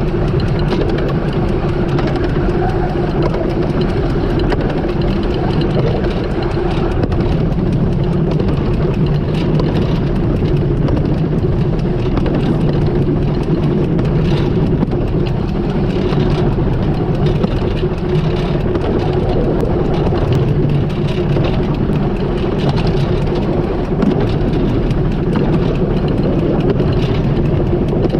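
15-inch gauge steam locomotive River Irt hauling its train, heard from the footplate: a steady running noise of the engine and wheels on the rails.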